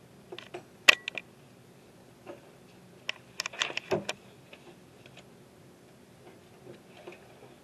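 Scattered light clicks and taps, a cluster about a second in and a busier run around three to four seconds in, then a few faint ticks, over a low steady hum.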